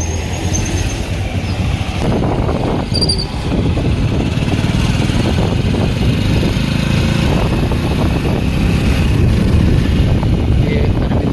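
Motorcycle being ridden along a road: the engine running under way with road noise, a steady low rumble.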